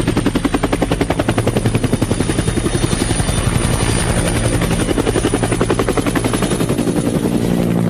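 Helicopter in flight: rotor blades chopping at a fast, even pulse of about ten beats a second under a steady high turbine whine. The sound cuts off abruptly at the end.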